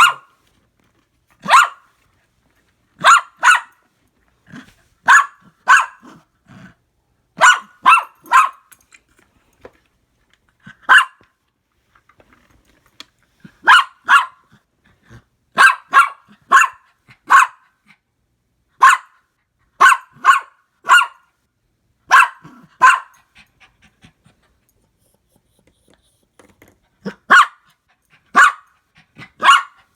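Dog barking repeatedly in short, sharp barks, often two in quick succession, with pauses between groups.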